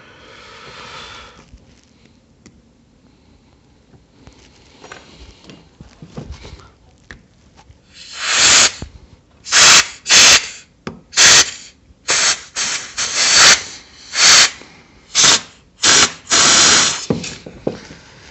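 Compressed-air blow gun firing about a dozen short, loud blasts of air through the carburetor of a Honda EG1400 generator to clear its jets and passages after cleaning. The blasts start about eight seconds in, after some faint handling of the small carburetor parts.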